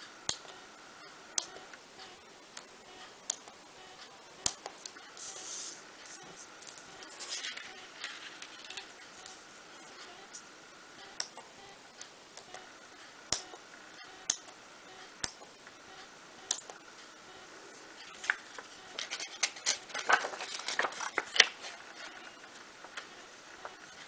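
Small fine-pointed parchment-craft scissors snipping between the pierced holes of parchment paper: sharp little clicks every second or two, with a busier run of snips and paper rustle near the end.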